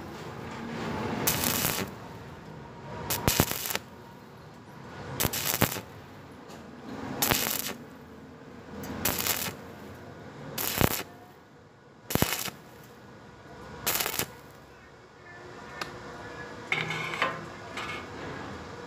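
Stick (arc) welding rod on a thin steel square tube, struck and broken off again and again, so the arc crackles in short bursts about every two seconds with quieter gaps between. The bead is laid in stitches, one puddle per burst.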